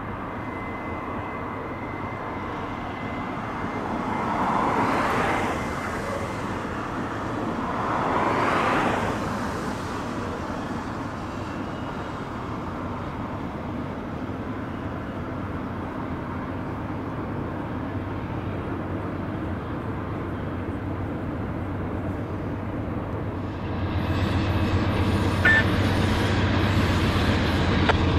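Distant double-stack freight trains rumbling steadily across the canyon bridges, with two brief swells of louder noise about 4 and 8 seconds in. Near the end the rumble turns louder and deeper.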